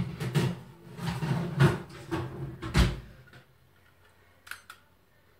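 Oven door opened and a metal baking tray slid in with clattering knocks and scraping, the door shutting with a heavy thud about three seconds in. Two light clicks follow about a second and a half later as a kitchen timer is set.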